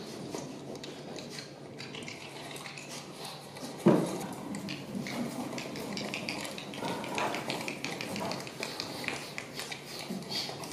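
A single loud knock about four seconds in, followed by light clattering and small knocks.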